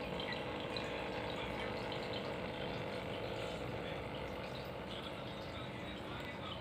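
Small aquarium waterfall: water trickling and splashing steadily over a faint steady hum, typical of the little pump that drives it.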